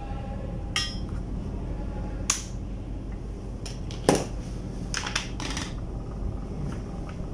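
Sharp clicks of an electric fan heater's rotary selector and thermostat knob being turned, several times, the loudest about four seconds in, over a steady low electrical hum as the heater's blower fan is switched off.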